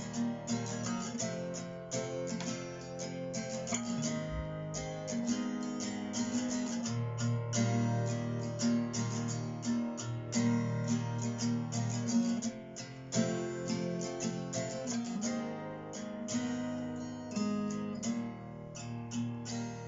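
Acoustic guitar playing an instrumental interlude alone, a steady run of strummed and picked chords between sung verses.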